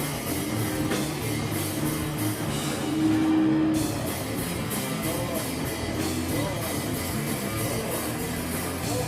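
A rock band playing live, with distorted electric guitar and a drum kit; a held guitar note stands out about three seconds in.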